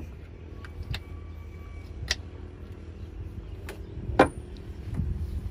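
A handful of sharp metallic clicks and knocks from hands working on the spark plugs and plug caps of a Yamaha two-stroke jet ski engine, the loudest a little past four seconds in, over a steady low rumble.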